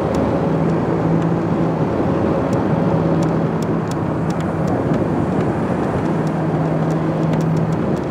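Motorcycle riding at a steady cruise in traffic: wind rushing over the microphone, with a steady low engine hum that fades in and out several times.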